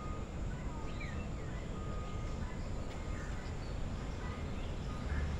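Faint scattered bird calls, short chirps and whistles, over a steady low background rumble of a bird-park aviary.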